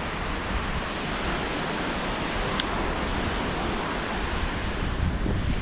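Surf washing up a sandy beach, a steady hiss of breaking waves, with wind rumbling on the microphone.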